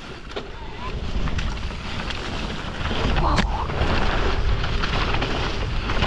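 Wind buffeting a ride-mounted camera's microphone as a Canyon Spectral:ON e-mountain bike runs down a dirt forest trail, with tyre rumble and the bike clattering over bumps. The rush grows louder about a second in and again around halfway, where a sharp knock stands out.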